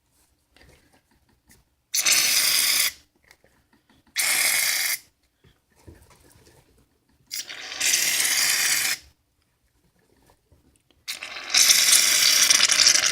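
Aerosol shaving cream can spraying foam in four hissing bursts. The first three last about a second or a little more, and the last, longest one runs about three and a half seconds. The can makes a weird noise.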